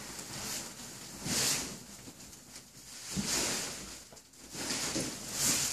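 Plastic wrapping on a rolled foam mattress rustling and crinkling as the mattress is unrolled by hand, in three swishes.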